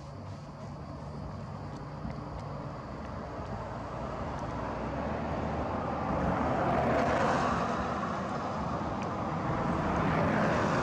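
Road traffic passing: a vehicle's noise builds, peaks about two-thirds of the way through and eases off, then another swells near the end.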